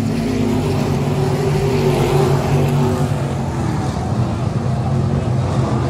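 IMCA stock cars' V8 engines racing in a pack around a dirt oval, a loud steady drone whose pitch drifts slightly as the cars go by.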